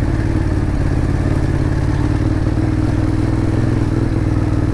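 Ducati Monster 821's L-twin engine running at a steady speed as the motorcycle is ridden over a rough, stony dirt road.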